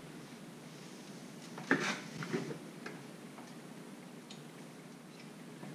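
Light knocks and ticks of a stainless steel mesh radiator guard being handled and hung against a motorcycle radiator: a short cluster of knocks about two seconds in, then a few faint ticks.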